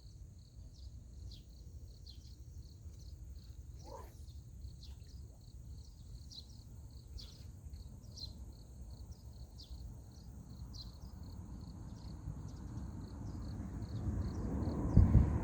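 Insects chirping outdoors: short high chirps repeating irregularly, a few a second, over a steady low rumble. In the last few seconds a broad low noise grows louder, with a brief thump near the end.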